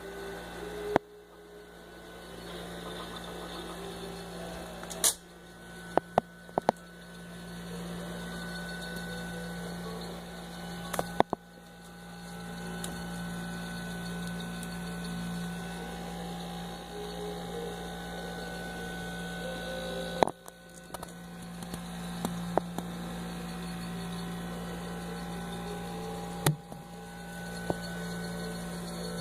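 Steady low electrical hum of a refrigerator, with several sharp clicks and knocks scattered through.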